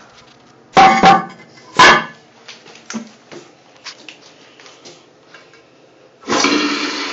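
Two loud knocks about one and two seconds in, then a few faint ticks. Near the end an American Standard 1.6 GPF toilet flushes, starting with a sudden rush of water.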